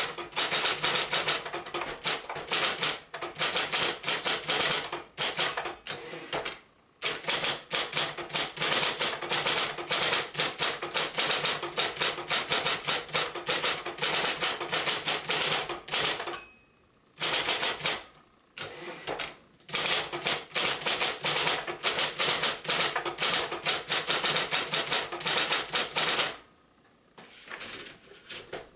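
1968 Royal Apollo 10 (Silver Seiko) electric typewriter being typed on fast, a rapid run of keystroke clacks with the motor itself nearly silent. There are two short pauses. The typing stops near the end, leaving a few faint clicks.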